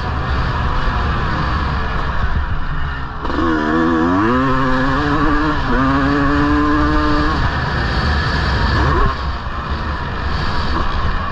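1999 Honda CR250R's two-stroke single-cylinder engine being ridden hard, its pitch climbing and falling with throttle and gear changes. The engine note drops off about three seconds in, climbs again, and drops once more near the end.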